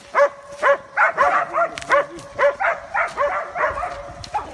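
Hunting dog barking rapidly, about three barks a second, baying at a wild boar.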